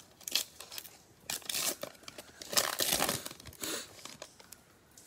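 Plastic wrapper of a Prizm baseball cello pack being torn open and crinkled by hand, in several noisy bursts of tearing and crinkling, the loudest about two and a half to three seconds in.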